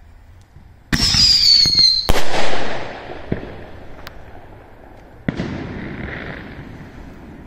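Fireworks going off: a loud whistle starts about a second in and falls in pitch over about a second, then a sharp bang dies away. A second, weaker bang comes about five seconds in.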